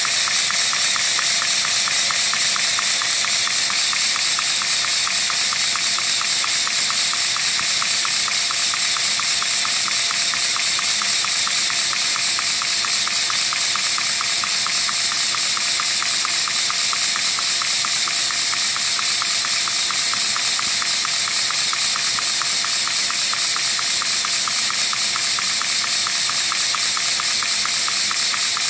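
Lego vacuum engine, a piston engine built from Lego bricks and driven by a vacuum cleaner's suction, running steadily at speed. Its plastic parts make a fast, even clatter over the steady rush of air drawn through by the vacuum cleaner.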